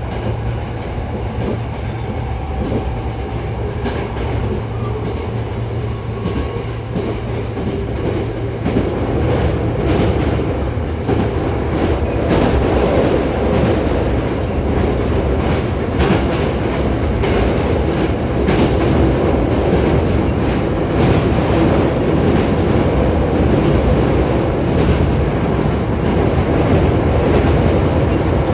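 Running noise inside a Hankyu 8000-series commuter train car: a steady low hum with the clickety-clack of wheels over rail joints. It grows louder about a third of the way in.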